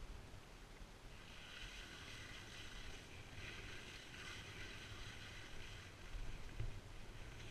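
Skis sliding over packed snow: a steady hiss that comes in about a second in, over a low rumble of wind on the microphone.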